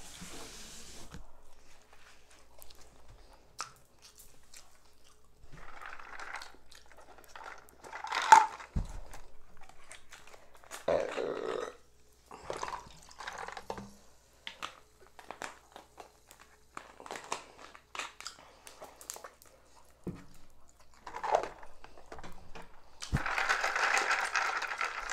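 Scattered small handling sounds at a table: rustling, light clicks and knocks as a plastic tumbler and cup are handled and something is poured, with a longer rattling hiss near the end.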